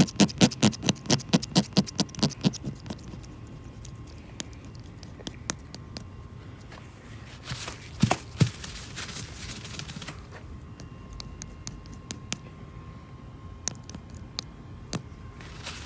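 Razor blade scraping excess cured resin off a windshield: quick regular strokes, about three or four a second, that stop after a couple of seconds, then scattered light scrapes and clicks with two knocks about eight seconds in.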